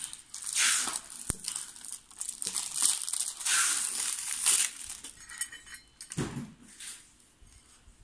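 Plastic packing film crinkling in several bursts as a metal light fitting is handled in its carton, with one sharp click about a second in; the rustling dies down in the second half.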